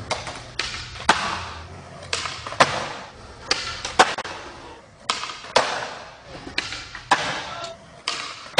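Skateboard wheels rolling on a smooth concrete floor, broken by about seven sharp cracks of the tail popping and the board landing during flat-ground flip tricks.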